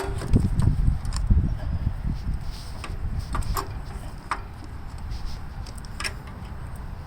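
Scattered metal clinks and knocks with rustling handling noise as the starter's drive chain is worked off its sprocket on a Gravely walk-behind tractor. The clinks come irregularly, about half a dozen, and the low handling rumble fades after the first couple of seconds.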